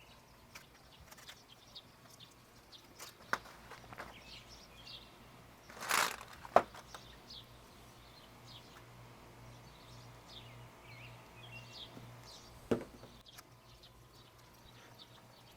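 Faint background birds chirping, with a few sharp clicks and one short noisy burst about six seconds in.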